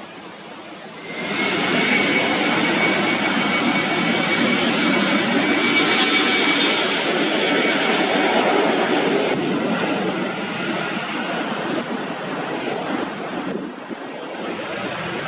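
Jet airliner passing close, its engines loud with a steady high-pitched whine over a broad rushing noise; the sound jumps up sharply about a second in and stays loud, easing slightly near the end.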